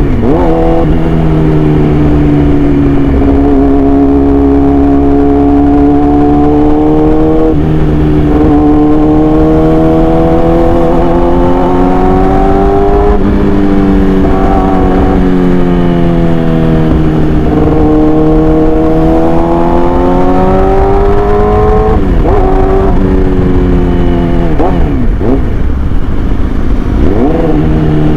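Yamaha R6 inline-four motorcycle engine running through an SC Project exhaust under way. The revs climb steadily for several seconds and drop sharply at each change, about every five seconds, followed by a few quick dips and recoveries near the end.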